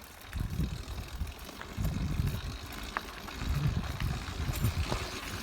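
Irregular low rumbling of wind buffeting the microphone as the bicycle gets moving, with a few faint clicks.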